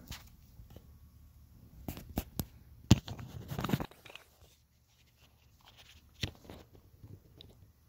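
A few scattered sharp clicks and, about three seconds in, a loud click followed by a short crunching rustle, like gear being handled.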